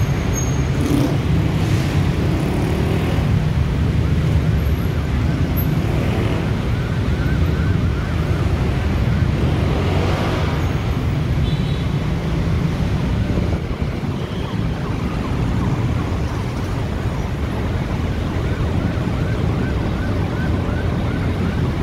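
Heavy road traffic running steadily as a constant low rumble of engines and tyres. A siren with a fast, repeating rising yelp is heard faintly in the middle and again near the end.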